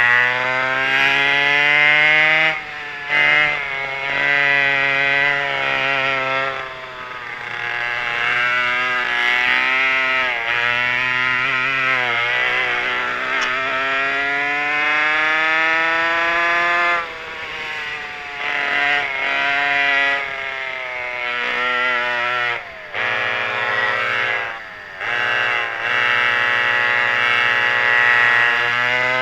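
Pair of McCulloch 5.3 ci two-stroke converted chainsaw engines on a vintage racing kart, under race throttle. The pitch climbs steadily along each straight and falls away when the throttle is lifted for corners, with several short cuts in between.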